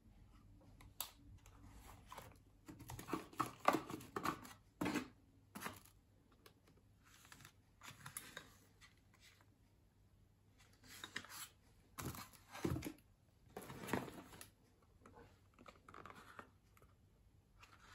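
Cardboard dessert packs being handled, with faint rustling and scraping of the card sleeves and a few light knocks as they are moved about and set down. The sounds come in two clusters, a few seconds in and again about two-thirds of the way through.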